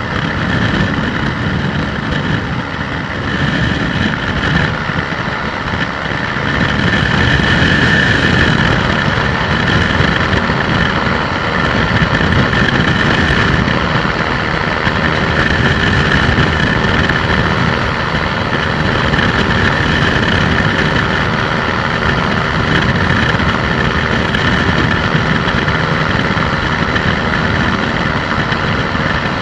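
Weight-shift microlight trike in flight: its engine running steadily with wind rushing over the airframe, a little louder from about seven seconds in.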